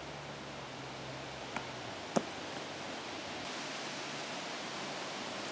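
Steady rush of wind noise on the microphone, with two sharp knocks about one and a half and two seconds in, the second much louder: a thrown golf disc striking something hard.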